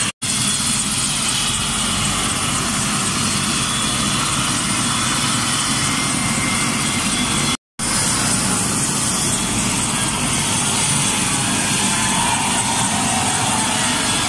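A helicopter's turbine and rotor running close by: a loud, steady whir mixed with rushing noise. The sound cuts out completely twice for a moment, once just after the start and once about halfway through.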